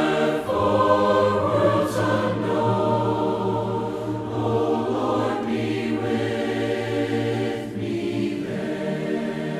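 Choir singing slow, long-held notes in harmony, the chord shifting a few times, without clear words.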